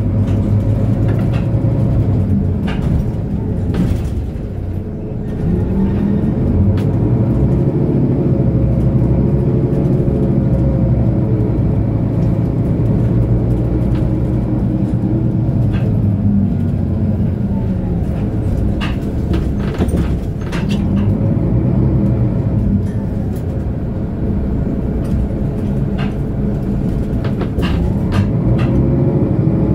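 Diesel engine of a 2008 Mercedes-Benz O530 Citaro Ü bus, heard from inside the passenger cabin, running under load. Its pitch rises and drops back again and again as it accelerates through the gears, growing louder from about six seconds in, with occasional short clicks and knocks.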